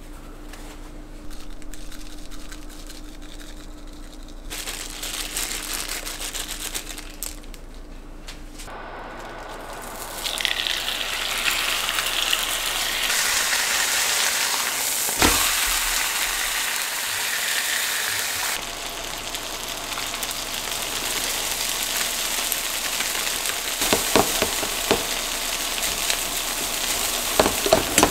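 Food sizzling in a hot frying pan, starting about ten seconds in and continuing, with a few sharp knocks over it near the middle and toward the end. Before the sizzling starts there is only quieter noise with a low steady hum.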